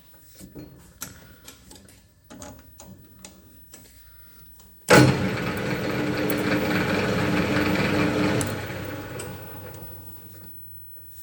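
Light clicks and knocks of handling for about five seconds. Then a metal lathe is switched on with a sudden start, runs steadily for about three and a half seconds, and winds down as it is switched off.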